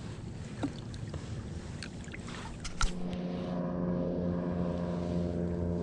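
Wind rumbling on the microphone with a few light clicks, then a sharp knock, and about three seconds in a steady engine drone begins and holds at one pitch.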